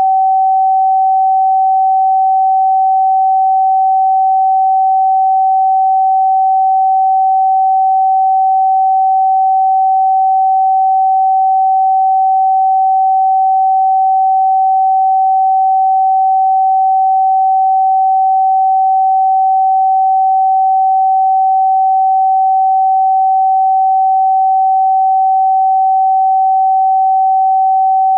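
A steady pure sine tone at about 764 Hz, the note G in a tuning where A is 432 Hz, held at one constant pitch and level.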